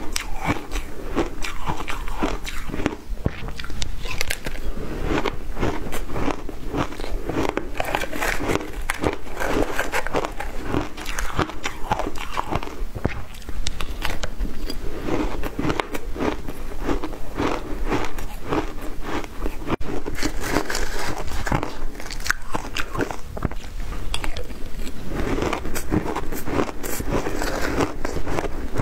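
Shaved ice dusted with matcha and milk powder being bitten and chewed, a dense, continuous crunching and crackling, picked up close by a clip-on microphone.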